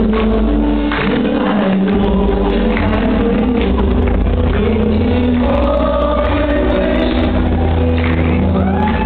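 A group of voices singing together over loud backing music with a heavy bass.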